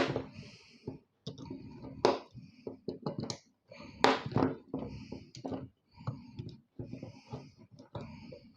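Irregular knocks and clicks of metal parts and hand tools being handled while a PC power supply is dismantled. The sharpest knocks fall at the start, about two seconds in and about four seconds in.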